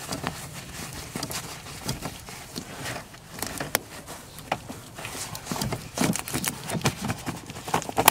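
Irregular clicks, taps and rustling of hands working in a truck's footwell under the dash, tucking the carpet back into place.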